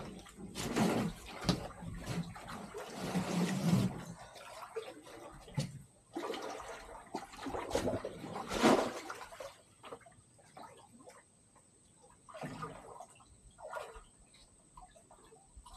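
River water splashing and sloshing as a person works in it: irregular splashes, heaviest in the first few seconds, then sporadic and fainter.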